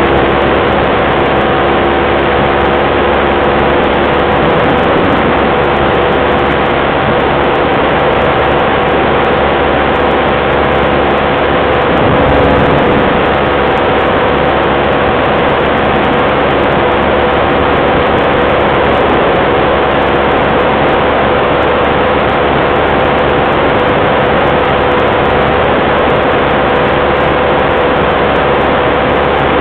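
Sport ATV engine running at a steady cruising speed, its drone holding a nearly constant pitch, under a loud rush of wind over the microphone.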